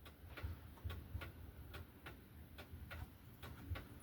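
Light, irregular clicks of the already-loosened bar nuts being taken off a Stihl MS 271 chainsaw's clutch cover, several a second, over a low hum.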